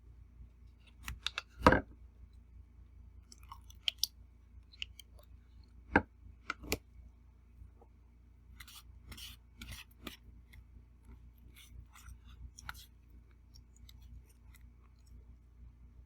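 Eating sounds: a utensil knocking and scraping on a plate a few times, the loudest knocks about two seconds and six seconds in. After that comes a run of short, soft chewing sounds.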